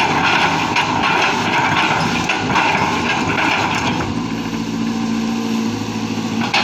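Cat 320GC excavator running, a loud, dense machine noise. About four seconds in, the noise eases and a steadier low hum with a held tone takes over.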